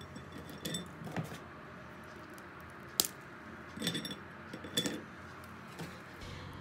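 Cooled hazelnut brittle being broken apart by hand: a few faint crisp clicks and small clatters of hard caramel pieces knocking together, some with a short glassy ring, and one sharp snap about three seconds in.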